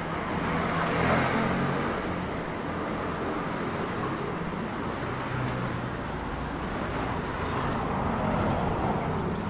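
Road traffic: the steady noise of motor vehicles running past, with a low engine hum and one vehicle passing loudest about a second in.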